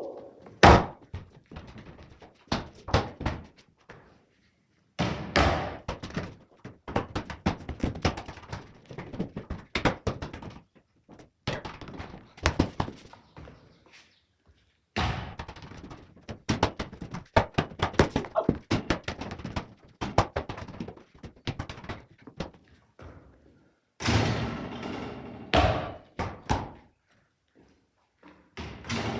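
Repeated thuds and knocks of objects hitting hard surfaces, some in quick rattling clusters, in short stretches that break off abruptly several times.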